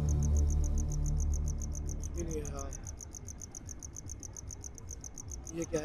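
Crickets chirping in a fast, even pulse. A low musical drone fades out over the first couple of seconds. There is a brief voice-like sound about two seconds in, and a louder short one near the end.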